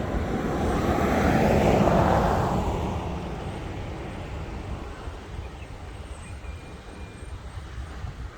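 A vehicle passes by, its noise swelling to a peak about two seconds in and then fading, leaving a steady low rumble.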